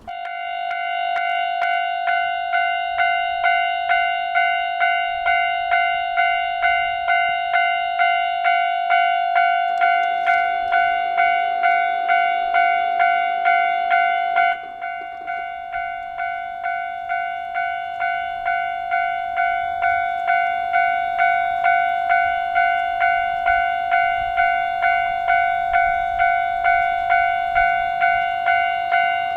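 Japanese railway level-crossing warning bell ringing, an electronic clanging repeated in an even rhythm, starting suddenly and running on as the barriers warn of an approaching train. The level drops abruptly about halfway through.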